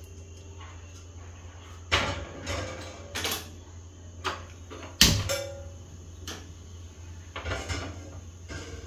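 Stainless steel pot knocking and clanking on a gas stove's burner grate as it is set down and moved, a handful of sharp knocks and clicks, the loudest about five seconds in with a brief metallic ring.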